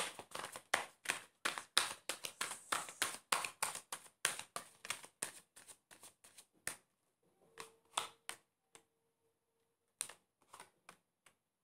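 Tarot cards being shuffled by hand: a quick run of crisp card slaps and clicks for about seven seconds, then a few scattered taps.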